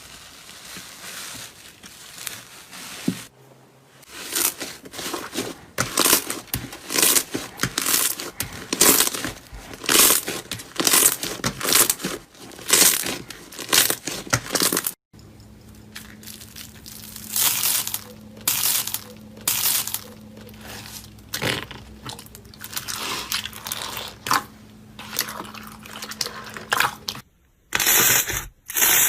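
Slime being squeezed and pressed by hand, giving repeated crackling, crunching pops about one or two a second, with abrupt changes where one clip cuts to the next.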